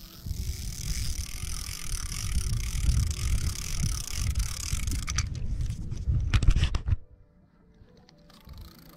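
Wind buffeting a camera microphone: an uneven low rumble with hiss, broken by a few sharp clicks about five to six and a half seconds in, then cut off suddenly about seven seconds in.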